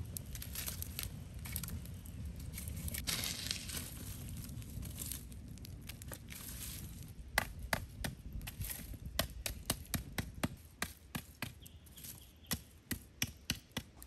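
Wood and charcoal fire crackling, with sharp snaps and pops coming a few times a second from about halfway in.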